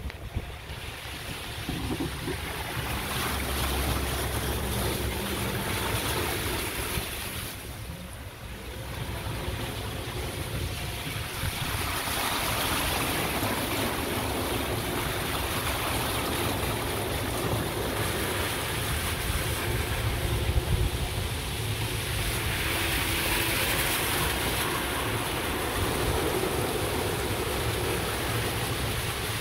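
Golf cart driving across a flooded, rain-soaked yard: a steady rush of tyres through water and wet grass over the cart's low running hum. It eases off briefly about eight seconds in.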